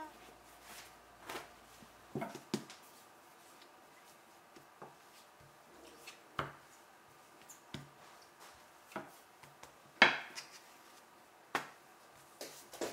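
Scattered light taps and knocks of hands pressing bread dough flat on a wooden board, with one louder knock about ten seconds in.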